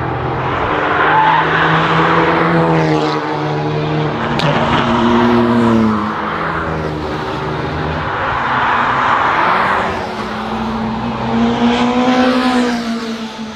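Road cars driving through a corner one after another, about three in turn, each engine note dipping and then rising as the car slows for the bend and pulls away, with tyre and road noise swelling as each passes.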